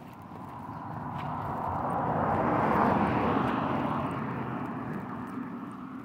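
A vehicle passing by: a rushing engine noise that swells to a peak about three seconds in and then fades away.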